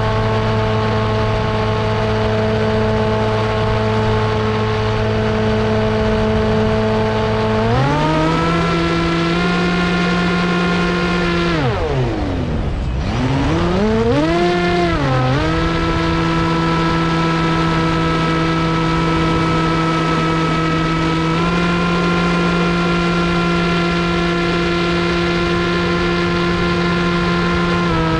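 RC plane motor and propeller running in flight as a steady pitched drone. The pitch steps up about a third of the way in, then drops sharply almost to nothing and swings back up as the throttle is cut and reopened. It holds steady again, with a small step up later on.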